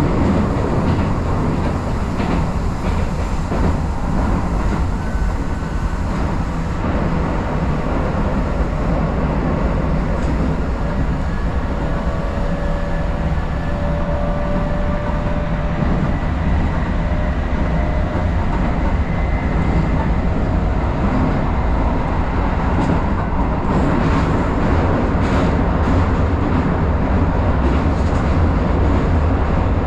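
Keisei Line commuter train running, heard from on board: a steady rumble of wheels on rails. A faint whine shows about halfway through, and a few short clicks come near the end.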